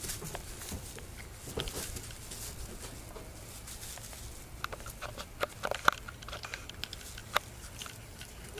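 Kittens scampering and pouncing on loose wood-shaving bedding: scattered rustles and light patters, with a flurry of sharper clicks and scuffs about five to seven and a half seconds in.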